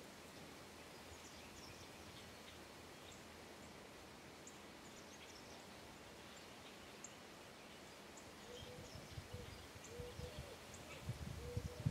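Faint outdoor hush with scattered, faint high chirps of small birds. From about eight seconds in, irregular low rumbling bursts come in and grow louder near the end, along with a few short low tones.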